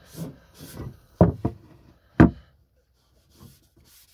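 A wooden keepsake box being handled and set down, knocking on a hard surface: two knocks close together about a second in, then a louder single knock about a second later, with softer handling rustles between.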